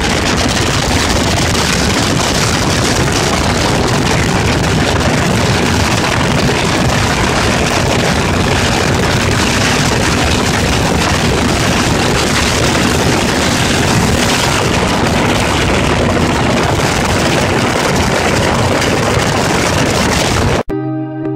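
Motorboat under way, its engine running steadily under a loud, even rush of wind and water. It cuts off abruptly near the end, giving way to guitar music.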